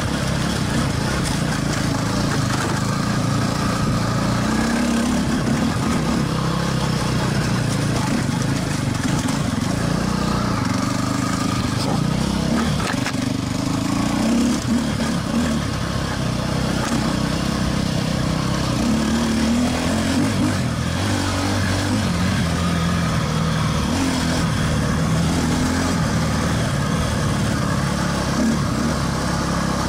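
KTM enduro motorcycle's single-cylinder engine being ridden hard on a dirt trail, revving up and falling back again and again through the turns, heard from the rider's helmet camera.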